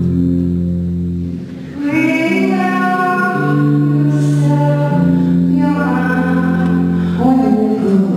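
Live music: a woman singing a slow song over long held accompanying chords, her voice coming in about two seconds in.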